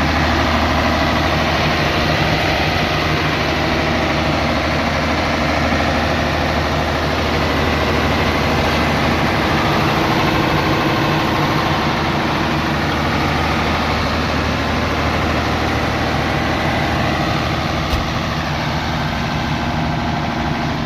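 Ashok Leyland Hino water-cooled diesel engine of an 82 kVA silent generator set running steadily under its canopy, with one short click near the end.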